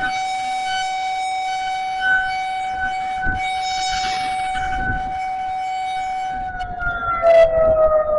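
Federal Signal 2001-SRN electromechanical outdoor warning siren holding a steady tone. About six and a half seconds in, its pitch begins to fall and it grows louder.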